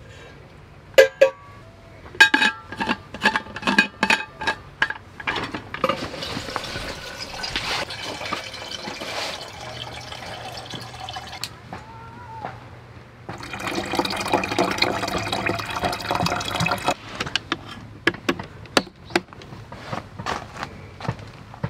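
Water poured from a kettle into a vacuum flask, in two spells, the second louder. Sharp clicks and metal clinks come in the first few seconds.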